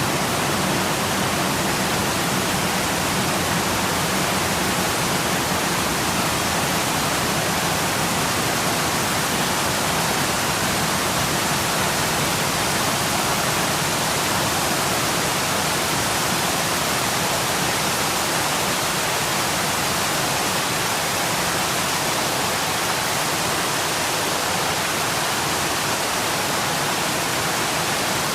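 Waterfall, water falling and splashing in a steady, even rush.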